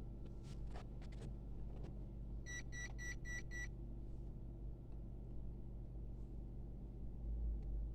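Five quick, high-pitched electronic beeps, about four a second, starting about two and a half seconds in, over a steady low electrical hum, with a few light clicks near the start.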